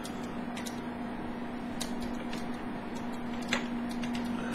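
Scattered light clicks and ticks of a plastic hard-drive enclosure and small screws being handled, over a steady low hum.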